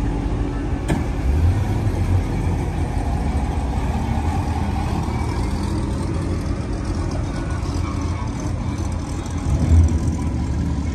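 Sports cars rolling slowly past at low speed, engines running low and steady, with the engine sound swelling briefly about a second and a half in and again near the end.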